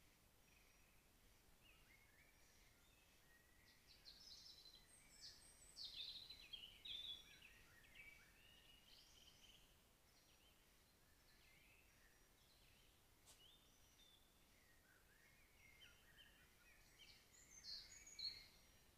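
Faint songbird song: runs of quick, varied chirps and warbles over a low hiss, strongest about four to eight seconds in and again near the end.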